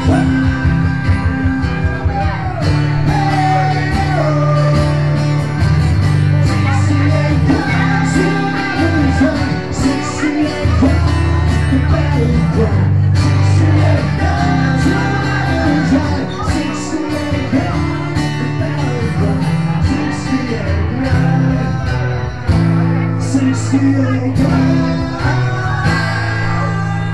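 Live acoustic music: strummed acoustic guitar with a sung melody over it.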